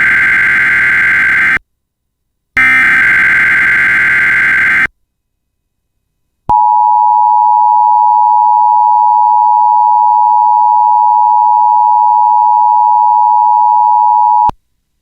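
Emergency Alert System tones: the tail of one harsh digital data burst of the SAME header, then a second identical burst of about two seconds, followed after a short gap by the steady attention tone, held for about eight seconds before it cuts off.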